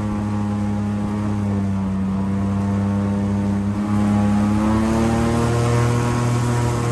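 Airboat's engine and large air propeller running with a steady drone. About four seconds in it revs up: it gets louder and rises in pitch, then eases back slightly near the end.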